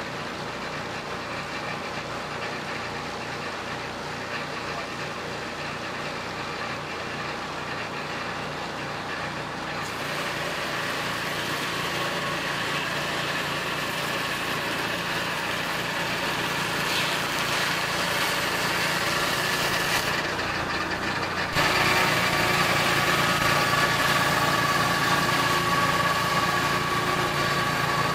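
Peterson Automated Swingblade Mill's engine running steadily with its 10-inch circular saw blade spinning. It gets louder about ten seconds in, and the sound changes abruptly about two-thirds of the way through.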